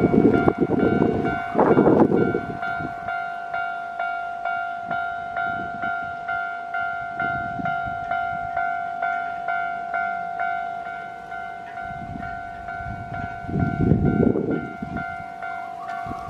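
Japanese level crossing's electronic warning bell clanging steadily, about one and a half strokes a second. A train rumbles past for the first two seconds, and train noise swells again about three-quarters of the way through.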